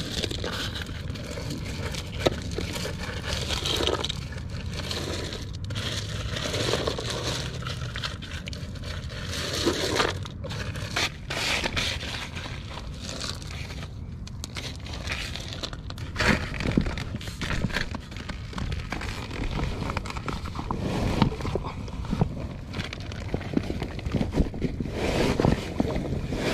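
Hands scooping and shifting loose landscape gravel and rocks: stones crunching, scraping and clicking against each other in irregular bursts.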